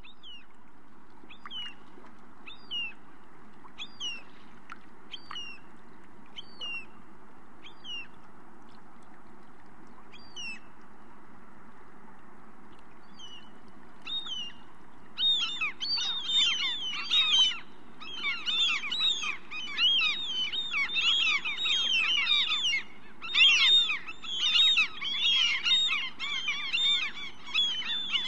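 Birds chirping over a steady background rush: single short chirps about once a second at first, then from about halfway a dense chorus of many birds chirping at once.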